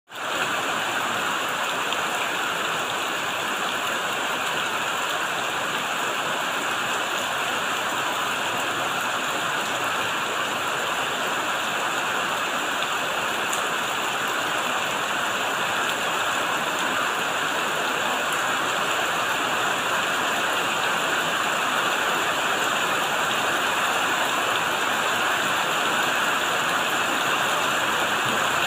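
Steady rain falling on banana leaves and on a shed roofed with shade netting and plastic sheeting.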